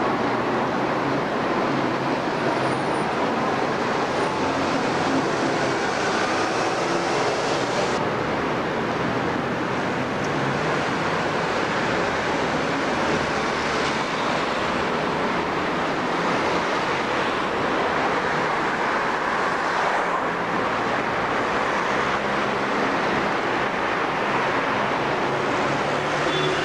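Steady city street traffic: buses and cars passing and pulling up, with a low diesel engine hum under the road noise. The sound shifts abruptly twice along the way.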